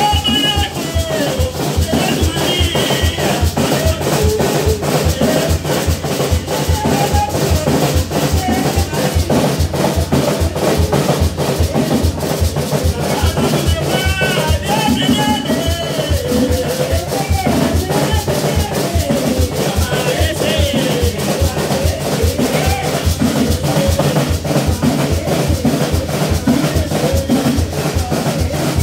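A voice singing a chant into a microphone, amplified through a loudspeaker, over a steady drumbeat.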